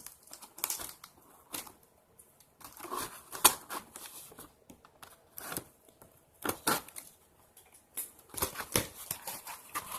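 A shipping package being opened by hand: irregular crackling, rustling and tearing of the packaging, in short bursts with pauses between them.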